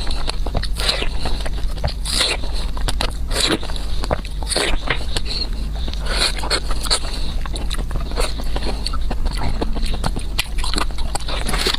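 Close-miked eating: fast, irregular chewing and biting, many short wet smacks and crunches one after another, over a steady low hum.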